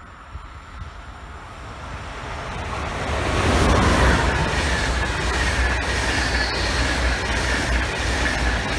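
Train passing on the line: it grows louder over the first few seconds as it approaches, a high whine drops in pitch as it goes by, and the wheels keep rolling loudly with a deep rumble.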